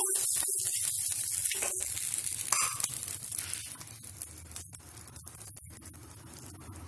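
Oil sizzling on a hot iron tawa as a fried egg is lifted off with a spatula, the sizzle dying down over a few seconds. A few light clicks and a low steady hum underneath.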